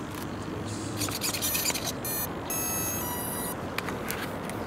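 Rustling of handling, then two electronic beeps: a short one about two seconds in and a longer one of about a second right after.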